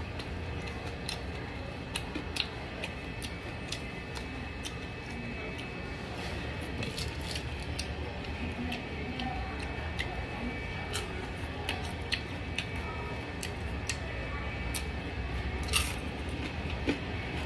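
Eating sounds: scattered sharp clicks and crunches from chewing fried fish and picking it apart with bare fingers, over a steady low hum.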